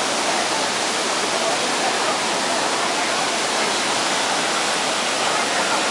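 Steady rushing of water pouring down tiered waterfall cascades into a pool, an even hiss-like roar with no breaks.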